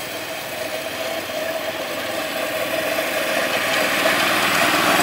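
Engine of a small yellow miniature-railway locomotive running as it hauls a carriage of riders along the track, growing steadily louder as it approaches.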